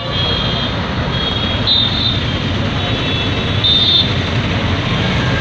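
Busy city traffic: a steady engine rumble and road noise, with several short, shrill high tones over it, the loudest about two and four seconds in.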